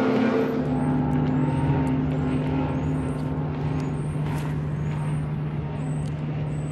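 Outboard motors of bass boats running on the water. One engine's drone fades away about halfway through, while another outboard holds a steady low hum as it moves slowly.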